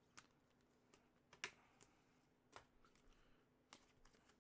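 Faint, scattered clicks and taps, about half a dozen at uneven intervals, from trading cards in rigid plastic holders being handled and set down on a table, over a faint steady hum.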